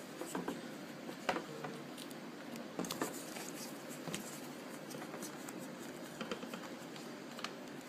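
Faint, scattered clicks and rustles of handling: small pieces of foam being pushed into holes in a plastic toy rifle, a light tap every second or so.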